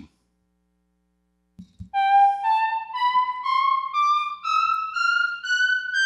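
Two computer-synthesised scales from Overtone played together: an equal-tempered scale and a linear, harmonic-series scale climbing note by note, about two notes a second, starting about two seconds in. Some note pairs sound in tune together and others clash.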